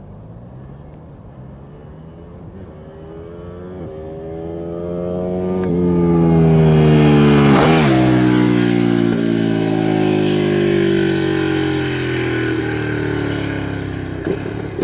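Ducati 959 Panigale's V-twin engine accelerating hard through the gears as it approaches, each upshift breaking the rising pitch. It passes close by about halfway through with a drop in pitch, then pulls away and fades, with a short sharp pop near the end.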